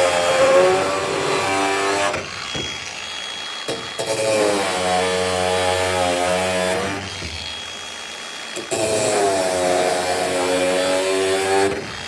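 Power tool with a cutoff wheel cutting through hogwire (welded wire) panel, three passes in a row. On each pass the motor's pitch drops as the wheel bites into the wire, then rises again before it stops.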